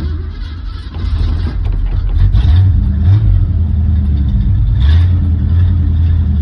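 1968 Ford Mustang engine running just after starting in park, its revs rising and falling a couple of times, the sign that the newly fitted neutral safety switch now lets it start.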